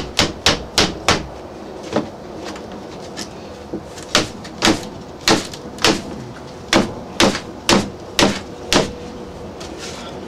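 A wooden block knocking against the vinyl frame of a double-pane window, working the frame rail into place around the glass. The knocks are sharp and irregular, some in quick runs of three or four.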